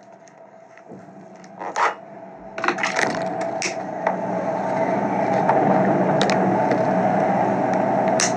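Plastic packaging crinkling and crackling as a plastic-wrapped parcel is handled and torn at by hand. After a couple of faint clicks it becomes a steady crackle about two and a half seconds in.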